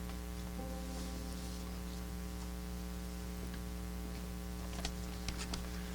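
Steady electrical mains hum with a stack of overtones, and a few faint clicks near the end.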